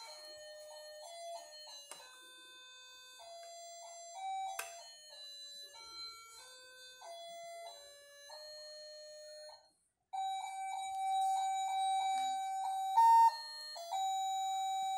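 Simple electronic melody from a battery toy's sound chip: a thin beeping tune stepping from note to note, with a brief break about ten seconds in and louder after it.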